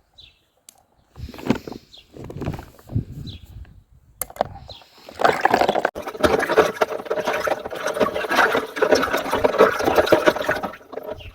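Water pouring and splashing: a few short splashes, then a loud, continuous pour from about five seconds in until just before the end.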